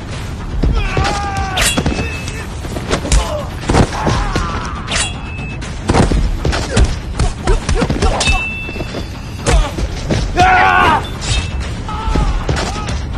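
Fight sound effects: a rapid run of hits and thuds, with three metallic clangs of machete blades that ring briefly. Fighters' shouts and grunts come in between, with a longer cry about ten seconds in.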